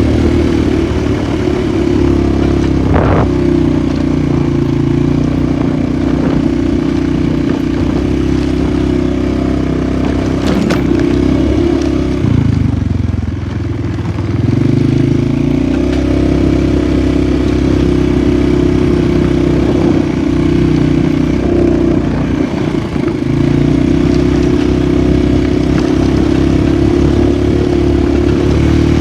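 Polaris 450 ATV engine running at a steady throttle. The revs drop off about twelve seconds in and climb back a couple of seconds later, with another brief dip a little after twenty seconds. A couple of sharp knocks sound over the engine.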